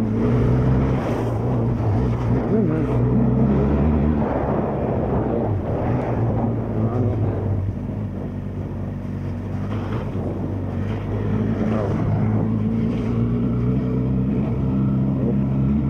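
Benelli TRK 502 X parallel-twin engine running while the motorcycle rides along. The engine note eases off and the level dips around the middle, then the pitch climbs steadily toward the end as it accelerates.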